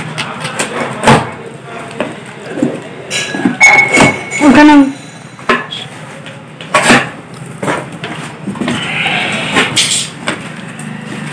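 Packing tape on a cardboard shipping box being cut with a blade and the flaps pulled open: scraping, tearing and sharp cardboard knocks. About four seconds in, a short wavering call sounds over it.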